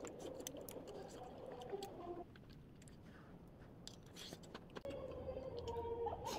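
Eating sounds: chewing, with light clicks of metal chopsticks and a spoon against a pan of stew. Faint voices run underneath for the first two seconds and again near the end.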